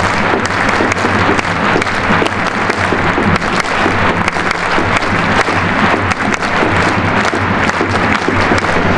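A large stadium crowd of football supporters clapping, over a steady low hum.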